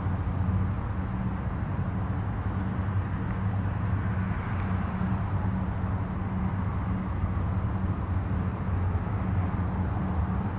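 Distant highway traffic: a steady low rumble and tyre hiss of many vehicles blending together, with a slight swell about halfway through as one vehicle passes closer.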